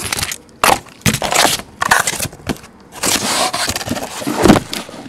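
Cardboard shipping case being opened by hand: a few sharp cardboard cracks and rustles, then a longer scraping stretch and a heavier knock near the end.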